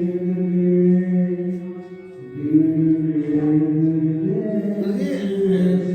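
Voices chanting a Hindu devotional mantra in long, held tones, with a short break about two seconds in before the chant carries on.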